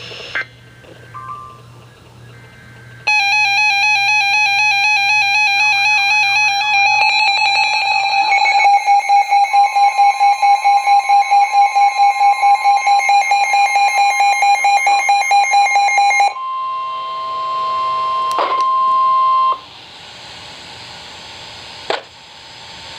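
Emergency Alert System alert tones for a severe thunderstorm warning: after a few quiet seconds, a loud buzzy alarm of several tones at once sounds for about thirteen seconds, pulsing about five times a second in its second half. It gives way to a steady single tone for about three seconds, then faint hiss with a click.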